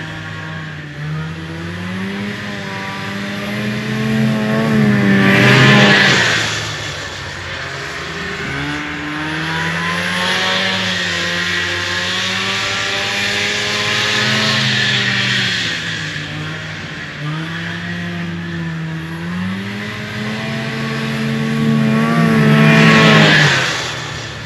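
1974 Arctic Cat Lynx snowmobile's fan-cooled 340 two-stroke engine running as the sled is ridden around, its pitch rising and falling with the throttle. It grows loudest as it comes close about six seconds in and again near the end.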